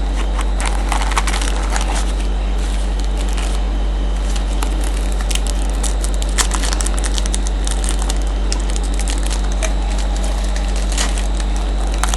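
Trading-card foil packs being pulled from the box and handled, with scattered crinkling and crackling of the wrappers, over a steady low electrical hum.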